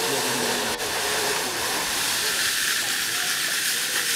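Zip-line trolley running along a steel cable: a steady, even hiss.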